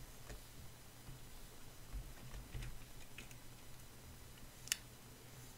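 Quiet room tone with a steady low hum, a few faint soft scrapes, and one sharp click about three-quarters of the way through.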